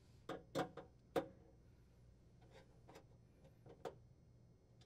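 Faint, irregular metallic clicks and ticks, about eight of them, the strongest in the first second and a half, from a screwdriver working the screws of a cooktop's metal clamping bracket.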